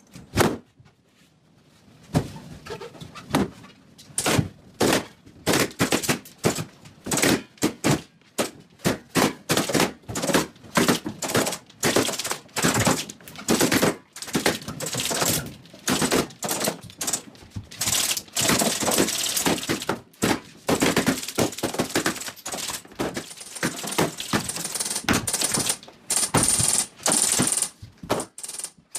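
Rubber party balloons popping one after another in quick, irregular succession, sharp loud pops sometimes only a fraction of a second apart, starting about two seconds in.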